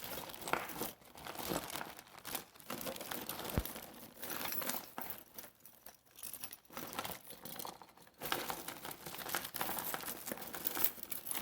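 A tangled mass of costume jewelry being pulled apart by hand in its bag: rustling with many small clicks and rattles of chains and beads. It goes quieter for a couple of seconds around the middle.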